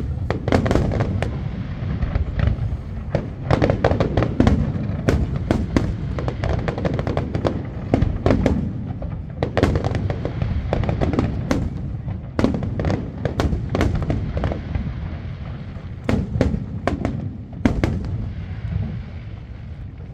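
Aerial fireworks display: shell bursts and sharp bangs going off in quick, irregular succession, many overlapping, over a continuous deep rumble of booms.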